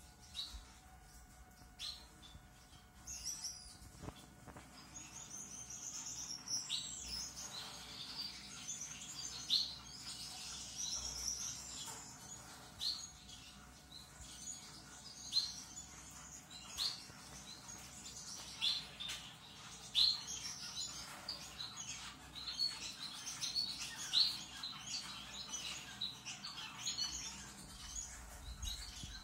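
A roomful of caged Gouldian finches chirping and twittering. The short, high calls overlap steadily, with a louder single call standing out every second or two.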